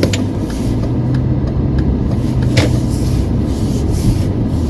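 Car engine and road noise heard from inside the cabin while driving, a steady low hum and rumble, with a few short clicks and knocks, one more distinct about two and a half seconds in.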